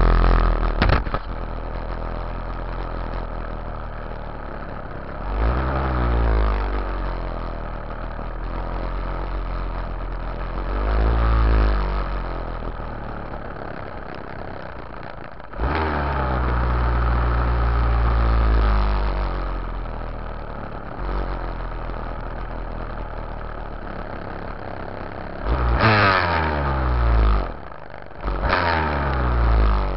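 A Yamaha YZ dirt bike's engine running at low speed, heard from a camera on its rear fender. Between steadier stretches it revs up briefly about five seconds in and again around eleven seconds, pulls longer from about fifteen to nineteen seconds, then revs twice in quick succession near the end, dropping off for a moment between the two.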